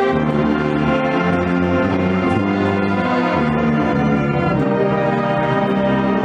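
Marching band playing together, brass and tuba holding long sustained notes that change every half second to a second.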